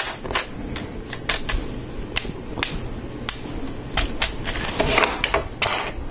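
Lego Technic plastic parts clicking and rattling as a partly built section is handled and pieces are pressed together: a string of irregular sharp clicks, with a short rustle near the end.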